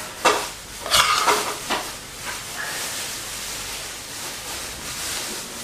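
A steel spoon scraping and scooping thick carrot halwa out of a pressure cooker onto a plate. There are a few sharp scrapes in the first two seconds, then a steadier, softer rustling hiss.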